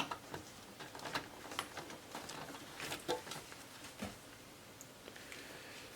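Scattered light clicks and rustling of an orange SATA data cable being handled while it is routed inside an open desktop PC case.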